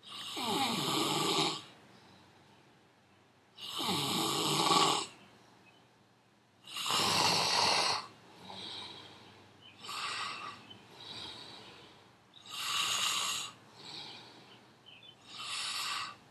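A man snoring: five long, loud snores, about one every three seconds, with quieter snoring breaths between them.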